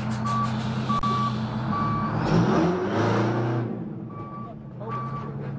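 Vehicle backup alarm beeping steadily, short beeps a little more than once a second, over the steady hum of an idling engine; a louder sound that rises in pitch swells up in the middle.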